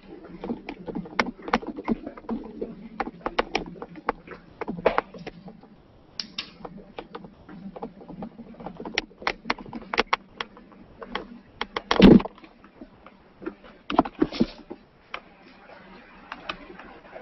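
Handling noise near a microphone: a run of irregular clicks and knocks, with one louder thump about twelve seconds in.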